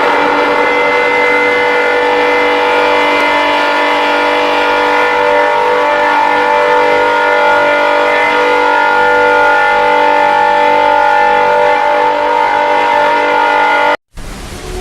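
An emergency warning alarm sounding as a steady chord of several tones held without a break, cut off suddenly near the end.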